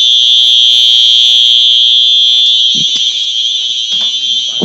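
Simplex fire alarm horn strobe sounding a loud, continuous, steady horn tone while running on a 6-volt battery instead of its usual supply.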